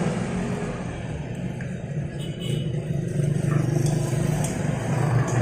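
A motor vehicle engine running, a low steady rumble that grows louder about halfway through.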